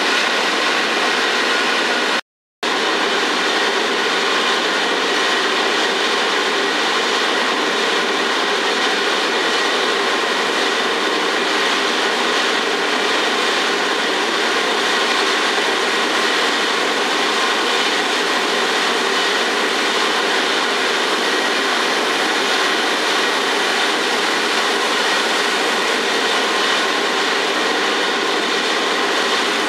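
Steady, loud machinery noise at a truck dump as wood chips slide and pour out of a tipped chip trailer. The sound drops out for a moment about two seconds in.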